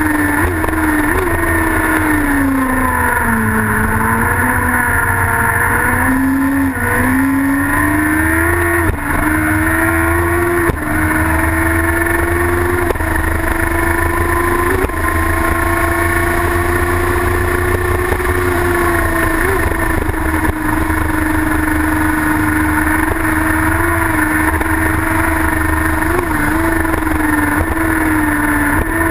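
Racing sidecar outfit's engine running hard at high revs under race load. The pitch dips for a corner about three to four seconds in, holds steady for long stretches with brief blips, and falls away at the very end.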